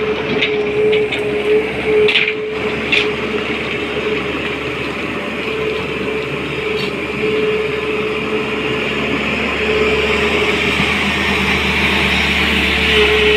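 SANY crawler excavator's diesel engine running steadily under working load, with a whine that comes and goes and a few short clanks in the first three seconds as the bucket works loose gravel.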